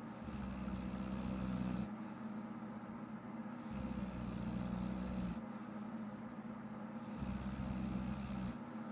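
A woman snoring in slow, regular breaths, about one full breath every three and a half seconds, the in and out breaths alternating with a different rasping sound each.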